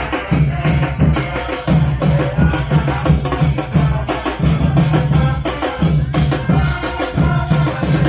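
Live brass-and-drum street band playing: horns over a steady drum beat, with a repeated low bass figure.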